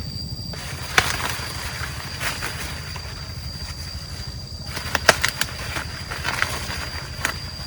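A steady, finely pulsing low rumble like a running engine, under a steady high tone, with rustling and sharp knocks: once about a second in, a cluster near five seconds, and once near the end.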